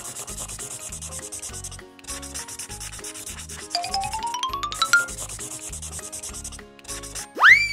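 Felt-tip marker rubbing back and forth on paper in short strokes, over background music with a steady beat. About four seconds in, a rising run of sparkly chime notes plays as a sound effect, and near the end comes a quick swooping sound that rises then falls.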